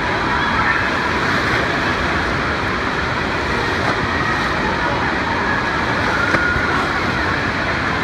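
Wave pool water churning and breaking in a steady rush of noise, with faint voices of the swimmers mixed in.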